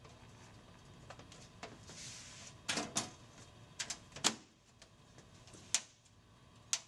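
Side cover of a PC tower case being fitted back on: a brief soft scrape about two seconds in, then a scattered string of sharp clicks and knocks as the panel is slid and pressed into place.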